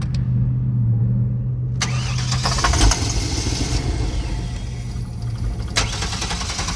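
GMC Savana van engine cranking on the starter, then catching and running about two seconds in on starting fluid sprayed into the throttle body, with a single thump just after. Firing only on starting fluid points to no fuel reaching the engine, which the owner puts down to a bad fuel pump.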